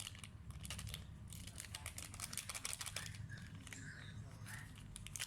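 Hands working on a laptop's internals: a run of light clicks, ticks and crinkles from small parts being handled, thickest in the middle.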